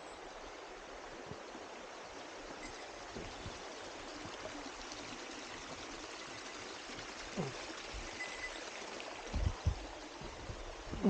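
Steady rush of running water, with a few dull low thumps about nine seconds in.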